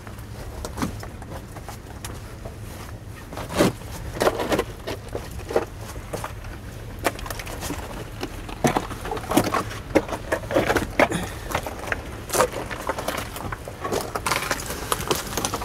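Cavers' footsteps, scuffs and knocks on rough, broken lava rock as they scramble through a lava tube: irregular short knocks and scrapes, sparse at first and more frequent in the second half, over a low steady rumble.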